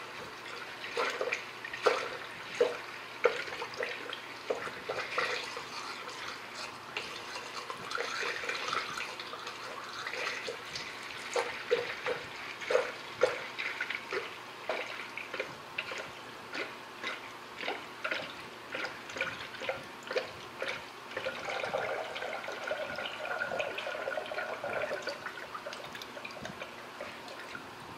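Antifreeze coolant glugging as it pours from a one-gallon plastic jug into a spill-proof funnel, with uneven gulps about one or two a second as air bubbles back into the jug. This is the radiator and cooling system being filled with coolant.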